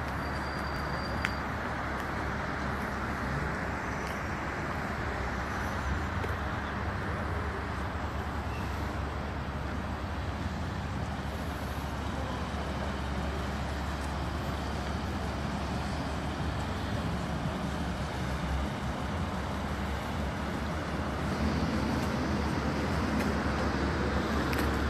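Steady outdoor street noise with a low traffic hum and no clear single event, a brief click about a second in, and the noise growing a little louder near the end.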